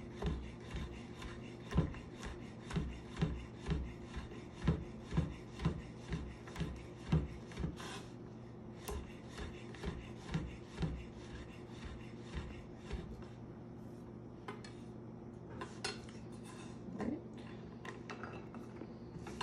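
Chef's knife slicing a zucchini on a wooden cutting board: a steady run of knocks, about two a second, as the blade meets the board. After about ten seconds the knocks thin out into a few scattered taps.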